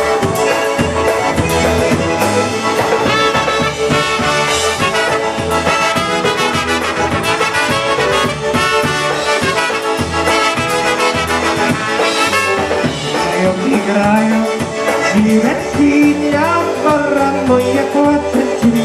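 A live band playing an instrumental passage of a Polish krakowiak dance tune, with a steady dance beat.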